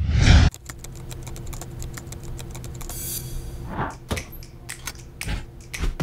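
A loud whoosh-like swell in the first half second, then a run of sharp mechanical clicks and ticks over a low, steady music drone. The clicks grow denser and more rhythmic after about four seconds.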